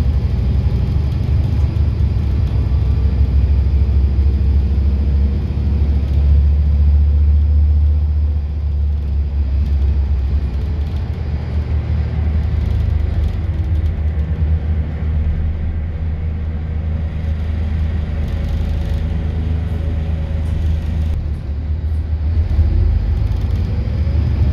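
Scania N230UD double-decker bus's diesel engine running, heard from the upper deck as a steady, loud low rumble.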